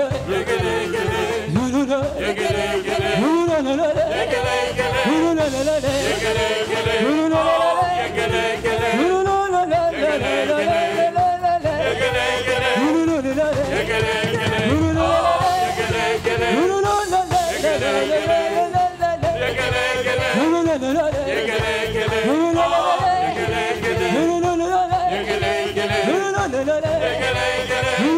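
Live gospel worship music: a group of singers singing into microphones over a live band, with the sung melody swooping up and down between notes.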